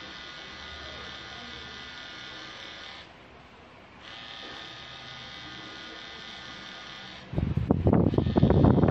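Pen-style tattoo machine running with a steady electric buzz as it needles ink into skin. It stops for about a second around three seconds in, then runs again. Near the end a much louder, irregular sound rises over the buzz.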